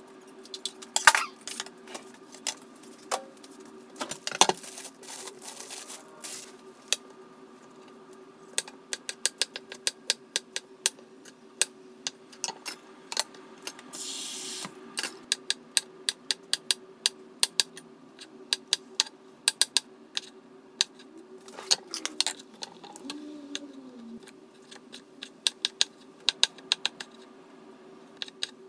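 Kitchen knife chopping shiitake mushrooms on a wooden cutting board, in quick runs of crisp taps, over a steady low hum. A brief hiss comes about halfway through.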